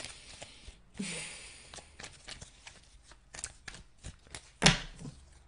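Tarot cards being handled: a run of light flicks and taps as the deck is sorted, with one louder tap about four and a half seconds in.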